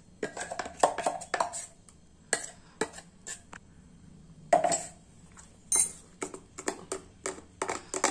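Stainless steel ladle clinking and scraping against a steel bowl as thick dosa batter is spooned in and stirred. The knocks are irregular and come more quickly near the end.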